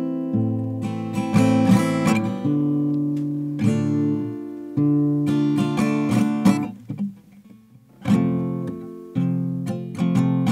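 Solo acoustic guitar playing a song's introduction: chords strummed and plucked and left to ring. It drops almost to silence for about a second near seven seconds in, then the strumming starts again.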